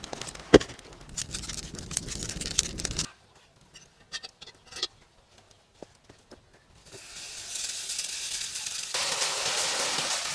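A sharp knock, then a few seconds of crackling. From about seven seconds in, a steady hiss of water steaming in a hot cast-iron cauldron over embers sets in and grows louder near the end.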